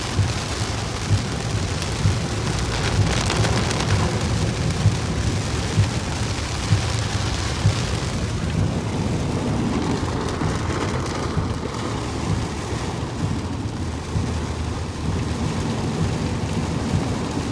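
Heavy rain beating down on a moving car, over a steady low rumble of engine and road noise. Scattered short thumps come mostly in the first half.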